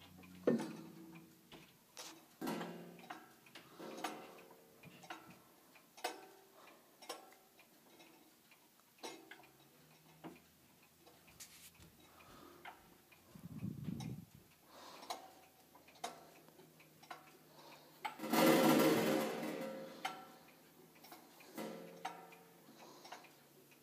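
IBM master time clock ticking, with sharp ticks spaced about one to two seconds apart. About three-quarters of the way through, a louder burst of noise lasts about two seconds.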